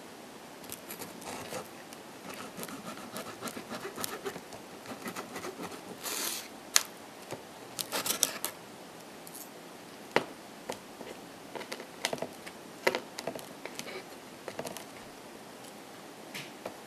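A person chewing and biting a salami pizza slice close to the microphone: irregular wet mouth clicks and short crackly bursts, with a few sharp louder clicks.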